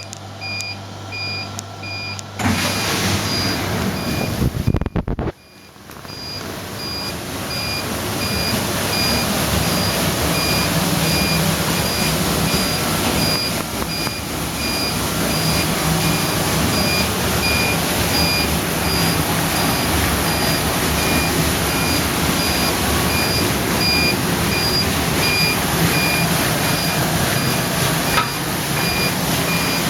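Commercial pass-through dishwasher running a wash, water spraying from its rotating wash arms as a steady hiss. The spray starts about two seconds in, cuts out briefly about five seconds in, then builds back up and holds. A short electronic beep repeats at even intervals throughout.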